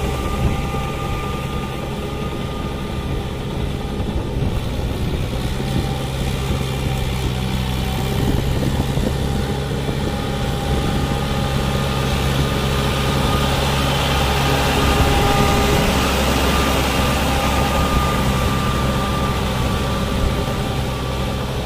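Swaraj 843 XM tractor's diesel engine running steadily under load as it drives a rotavator through flooded paddy mud, with a steady whine over the drone.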